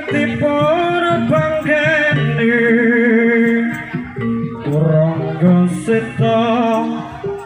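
Javanese jaranan gamelan music: a wavering, ornamented lead melody over kendang drums and metallophones.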